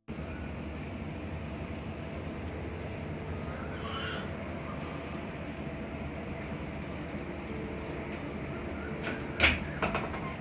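Birds calling: short, high, falling chirps repeated every second or so over a steady low hum. A sharp knock stands out about nine and a half seconds in.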